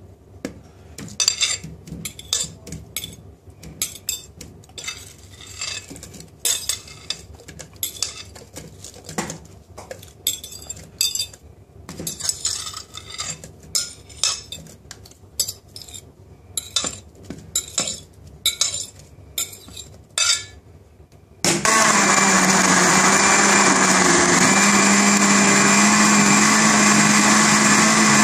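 Chopped fruit tipped from a plate into a plastic blender jug, making a run of irregular clinks and knocks. About three-quarters of the way through, the blender motor switches on suddenly and runs steadily with a humming whir, blending the fruit and yogurt into a smoothie.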